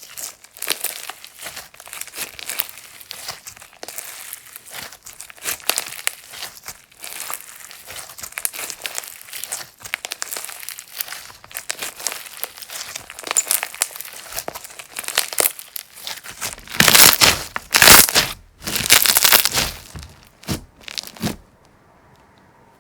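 Slime being squeezed, poked and stretched by hand, with dense crackling and popping clicks. It grows louder in a few strong bursts about three quarters of the way through, then goes quiet shortly before the end.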